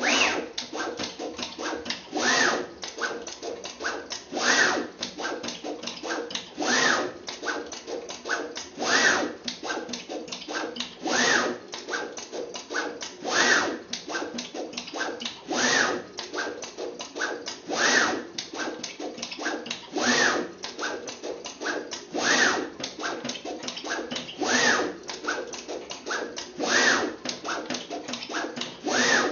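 Mosaic tile-laying robot working in a steady cycle: about every two seconds its gantry makes a move with a motor whine that rises then falls in pitch, with lighter clicking and ticking from the pick-and-place head in between.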